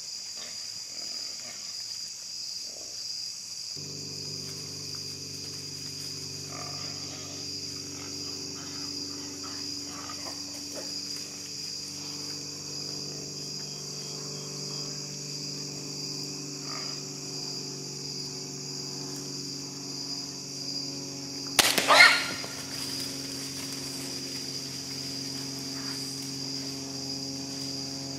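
Steady shrill chorus of crickets in the evening woods, broken about three-quarters of the way through by one sharp, loud crack: the shot of a crossbow loosed at a hog.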